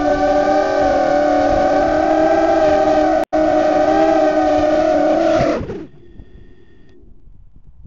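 Brushless motors and propellers of a small ZMR150 racing quadcopter (DYS 1806 3100Kv motors) whining steadily in flight, heard from the camera on the quad. The sound cuts out for an instant about three seconds in. About five and a half seconds in, the pitch falls and the whine dies away as the quad settles on the ground and the motors spin down.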